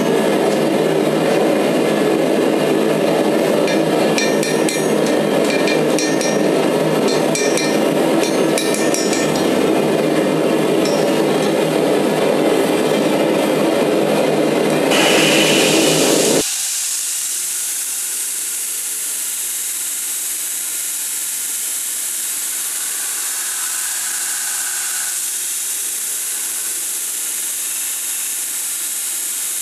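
Hand hammer striking a hot steel graver blank on an anvil, many quick metallic strikes over a steady low rushing noise. About 16 seconds in it cuts abruptly to a belt grinder grinding the steel, a steady hiss.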